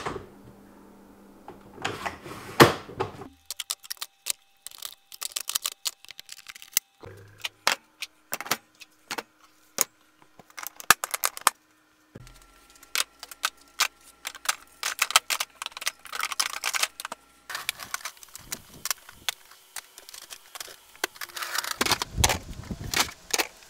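Handling of Ryobi Link plastic toolboxes: a run of sharp clicks, clacks and rattles as the rolling box's telescoping aluminium handle is worked and the boxes and their latches are handled.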